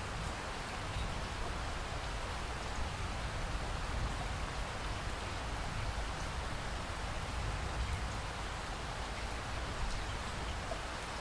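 Steady rain falling, an even hiss with faint scattered drop ticks and a low rumble underneath.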